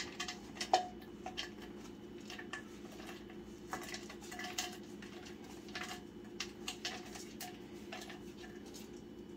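Chopped pecans pushed off a plate into a metal Bundt pan: scattered light clicks and taps as the pieces drop and the plate knocks the pan, over a steady low hum.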